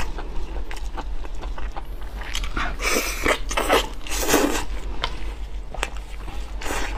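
Close-miked eating of a spicy lamb chop: biting into and chewing the meat, a run of irregular wet clicks and crackly bursts, busiest about three to four and a half seconds in.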